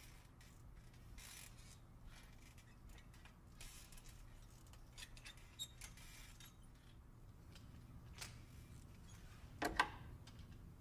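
Quiet elevator-car ambience: a low steady hum with faint scattered creaks and clicks, then a sharper, louder clack near the end.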